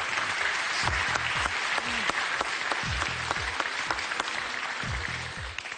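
Studio audience applauding steadily, dying away just before the end.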